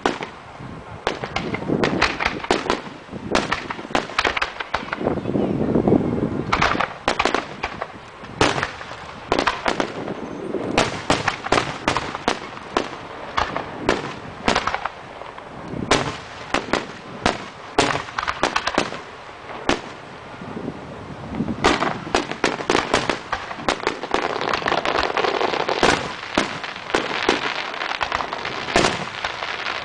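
Aerial fireworks bursting in quick succession: a dense, continuous run of sharp bangs and crackles, heaviest about five seconds in and again toward the end.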